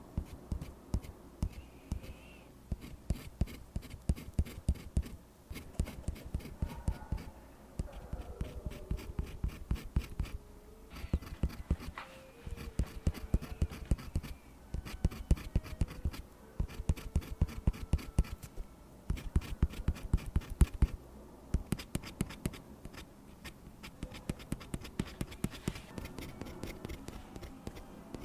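Pen scratching across paper as lines are drawn one after another, in quick runs of short strokes with brief pauses between runs.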